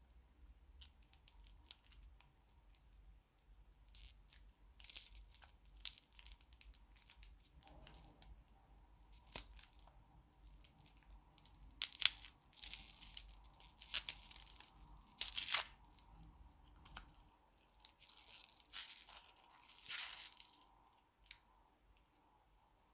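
Thin plastic wrapper of a ball lollipop crinkling and tearing as it is peeled off by hand, in a faint, irregular string of crackles that is busiest midway and stops a little before the end.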